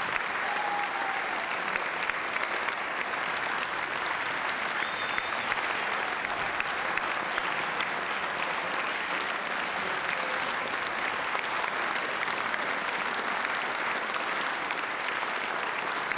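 Audience applauding: steady, continuous clapping that neither builds nor dies away.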